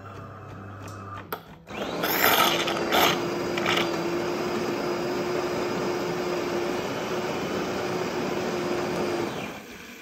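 De'Longhi PrimaDonna Avant coffee machine frothing milk through its milk carafe spout: a loud steady hissing with a steady hum over it, sputtering a few times as it starts about two seconds in, and stopping shortly before the end. A low hum and a single click come before it.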